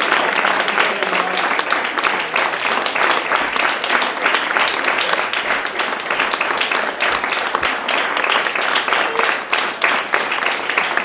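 Audience applauding steadily, many hands clapping in a dense, even stream.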